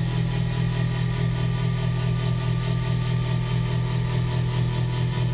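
Diamond-cut wheel lathe running, an alloy wheel spinning on it as the cutting tool skims the wheel's face: a steady low hum with fainter higher tones above it.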